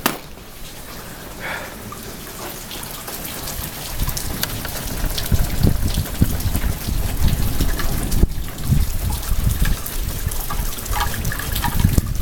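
Rain falling, a steady hiss with many drops ticking. About four seconds in, loud uneven low rumbling joins it and stays.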